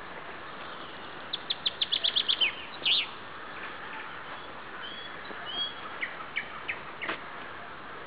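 Thrush nightingale singing: a run of about ten rapid repeated notes starting about a second in, then a louder burst, followed by scattered whistles and chirps.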